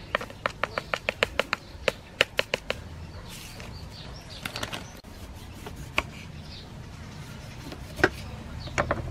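A seasoning packet tapped and shaken over a stone mortar, a quick run of sharp clicks for the first few seconds. Near the end a knife cuts through a lime onto a wooden chopping board with a couple of knocks.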